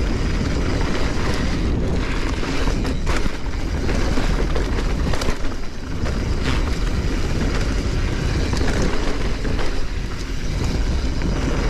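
Wind buffeting the microphone on a fast mountain-bike descent, over a steady low rumble of tyres on the dirt trail and the rattle of the bike, with sharp knocks from bumps now and then.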